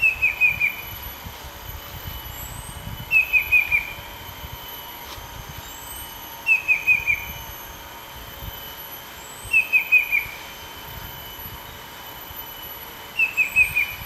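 Banded bay cuckoo (Cacomantis sonneratii) singing: a phrase of four quick whistled notes, each falling in pitch, repeated five times about every three seconds.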